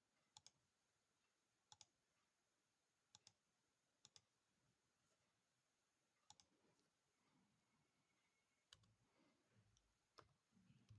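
Near silence with faint computer mouse clicks, about seven short double ticks spaced a second or two apart, made while dimensioning a sketch in CAD software.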